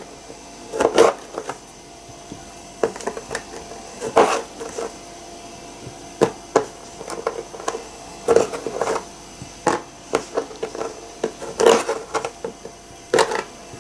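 Small kitchen knife halving grapes on a plastic cutting board: irregular taps and knocks of the blade against the board, a few of them louder.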